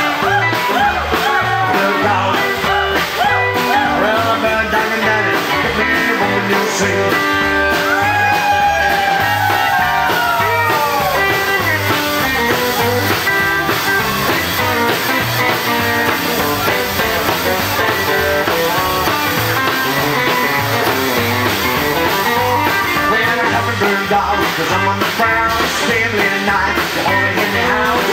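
Live rockabilly band playing: electric guitar, acoustic guitar, upright double bass and drums over a steady beat, with singing at the microphone.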